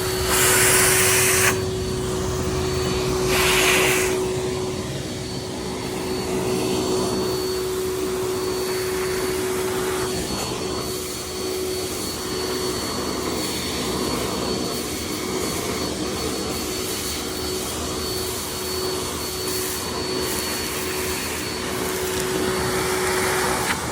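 Vacuum cleaner running with a steady whine, with two louder rushing surges in the first four seconds.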